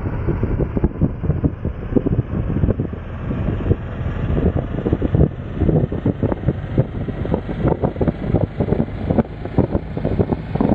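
Wind buffeting the microphone of a motorcycle riding at highway speed: a choppy, fluttering rush of low noise.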